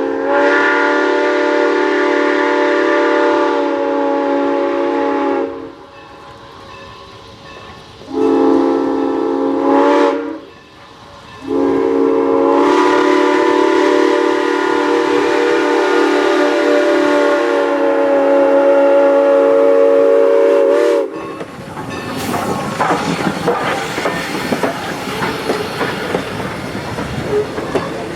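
Steam locomotive whistle sounding a chord of several tones: a long blast, a short one, then a long blast of about ten seconds. It is followed by the train rolling past, its wheels clicking over the rail joints.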